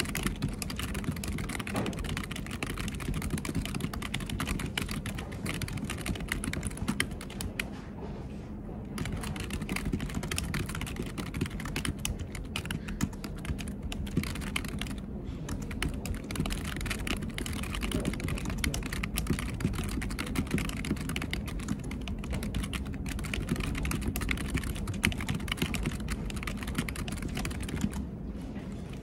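Fast, continuous typing on a computer keyboard, a dense run of key clicks with short pauses about eight and fifteen seconds in.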